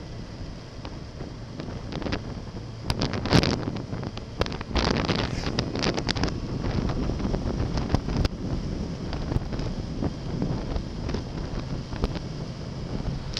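Wind rushing over the microphone of a moving motorcycle, with the Yamaha XJ6 Diversion's 600 cc inline-four engine running underneath. Louder gusts come about three seconds in and again around five seconds.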